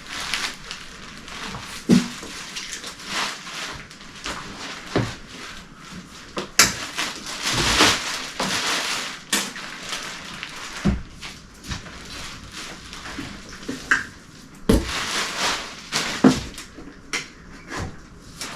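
Packaging and printer parts being handled during unboxing: rustling, with a longer rustle about halfway through, and scattered knocks and thumps.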